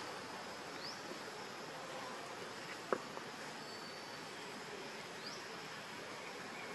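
Steady outdoor background hiss of insects, with a few faint short rising chirps and one sharp click about three seconds in.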